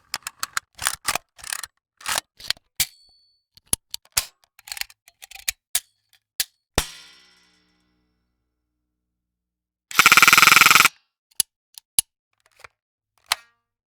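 A run of short foley effects: a quick succession of sharp clicks and knocks, then a harder hit that rings out for about a second. After a pause comes a loud, fast rattle lasting about a second, followed by a few scattered clicks.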